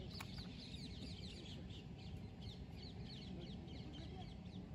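Small birds chirping busily in quick, falling notes, over a low steady background hum, with one faint sharp click about a quarter second in.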